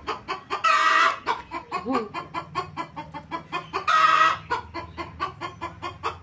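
Broody domestic hen clucking in a rapid, steady run of several clucks a second, breaking into two loud squawks about a second in and again about four seconds in, as her eggs are taken from under her.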